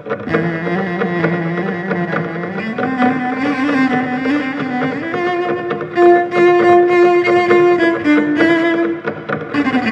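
A cello playing long bowed notes that step upward by about an octave over the first five seconds, then hold, over a fast pulsing accompaniment.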